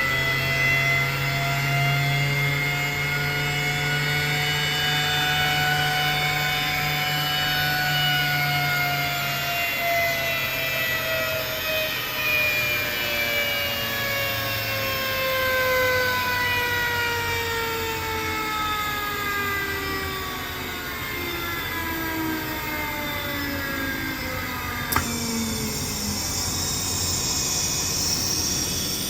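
Alup SOLO 15 inverter-driven 15 kW screw compressor with a permanent-magnet motor, running and filling its air receivers. Its whine falls steadily in pitch as the variable-speed motor slows. Near the end a sharp click comes, a hiss sets in, and the whine dies away.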